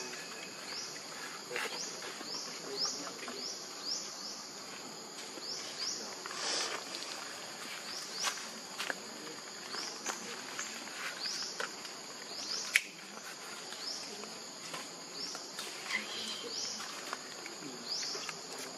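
Insects chirping steadily: short rising chirps about twice a second over a constant high hum. There are scattered soft rustles, and one sharp click about 13 seconds in.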